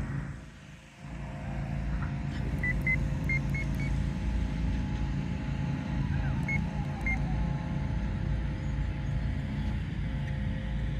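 Wind rumbling on the microphone, dipping briefly about a second in, with the faint steady whine of a distant RC model airplane's motor and propeller in flight.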